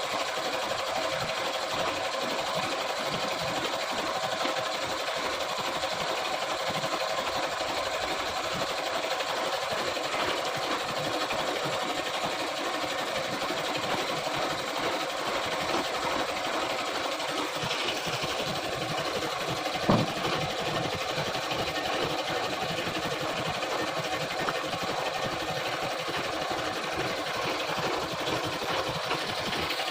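A machine running steadily with a fast, even mechanical chatter, and a single sharp knock about two-thirds of the way through.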